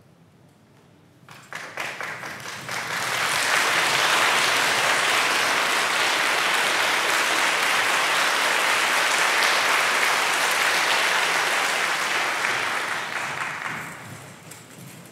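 Audience applause: a few scattered claps about a second in build quickly into dense, steady clapping, which fades away near the end.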